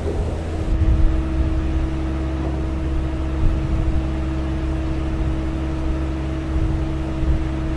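Large mining dump truck's diesel engine running at a steady speed, a constant low drone with a steady hum over it.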